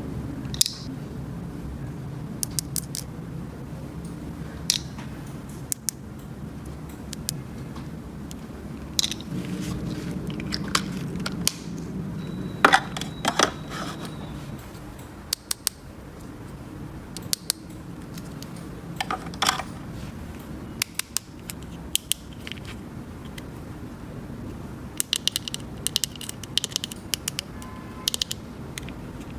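Scattered clicks, taps and light scrapes of small plastic toy pieces being handled, over a low steady hum.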